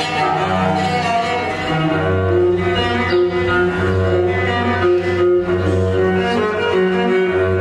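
Cello music: slow bowed notes, each held for about a second, over a low bass line.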